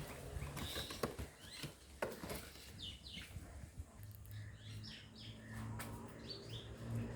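Small birds chirping in short falling calls, with a few sharp clicks of objects being handled. A steady low hum comes in about four seconds in.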